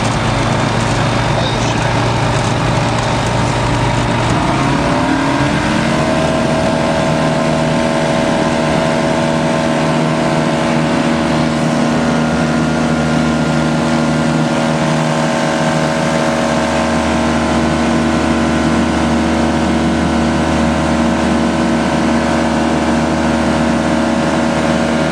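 Pipistrel light aircraft's propeller engine running loudly. About four to six seconds in it rises in pitch, then holds steady at high power, as for the takeoff run and climb.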